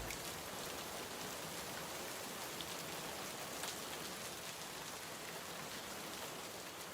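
Steady rain ambience: an even patter of rainfall with faint scattered drop ticks, fading slowly.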